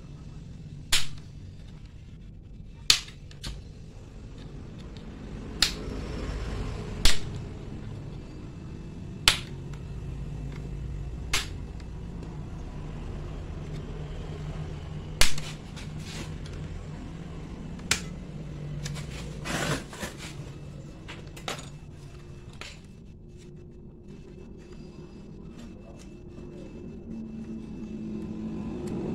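Plastic screen bezel of an Acer Z1402 laptop being pried off with a plastic card: a dozen or so sharp clicks at irregular intervals as the bezel's snap clips pop loose, over a low steady background rumble.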